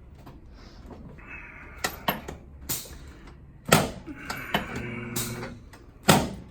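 Sharp knocks and clacks of a chiropractic adjustment on a patient lying face down, loudest about four and six seconds in. A short hummed voice sound comes between them.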